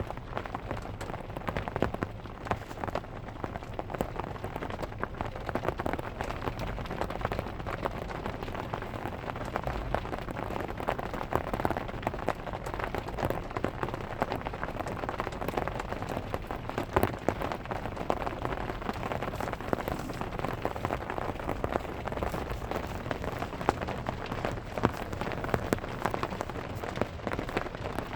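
Rain drumming on a car's roof, a steady patter of many drops with occasional louder individual drop hits.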